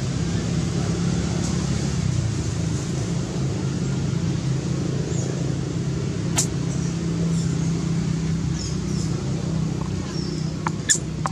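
A steady low engine-like drone, as from a motor running, with faint short high chirps over it and a sharp click about halfway and two more near the end.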